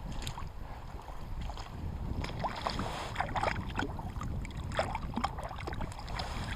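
Wind rumbling on the microphone, with water lapping and small irregular splashes and knocks at the river's edge.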